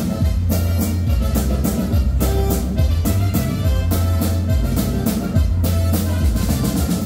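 Loud dance music, with drums and a bass line keeping a steady beat.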